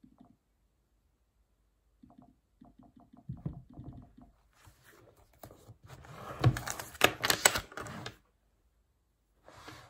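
Typing on a MacBook Air laptop keyboard: scattered keystrokes at first, then a run of hard, fast key strikes about six to eight seconds in. A short rustle follows near the end.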